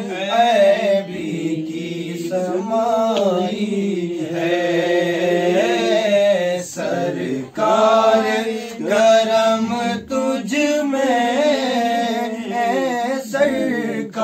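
A man singing an Urdu naat unaccompanied, drawing out long ornamented notes over a steady low hummed drone, with a short pause for breath about seven seconds in.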